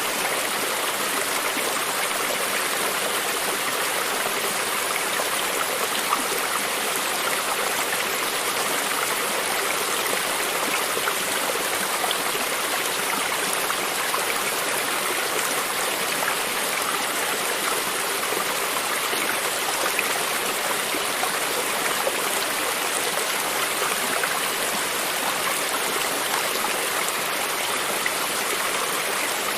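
A creek's running water flowing steadily, with a constant rushing and small splashes.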